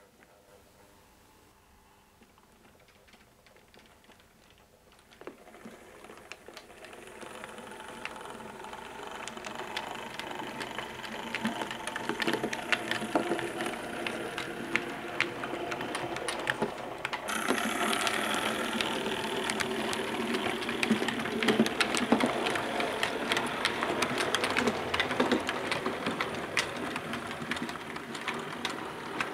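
Model 4MT Standard Tank locomotive running: a small motor and gears whirring, with many small clicks from the wheels on the track. It grows louder from about five seconds in and brightens about halfway through.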